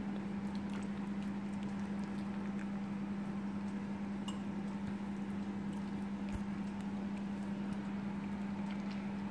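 A steady low hum with a faint hiss behind it, and a few light clicks and taps from fish being handled and cut on a board.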